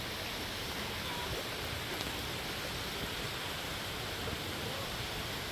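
Waterfall running with rainy-season water: a steady, unbroken rush of falling water.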